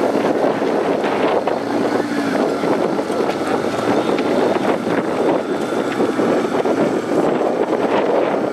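Rock-crawler buggy engine running steadily, mixed with wind noise on the microphone.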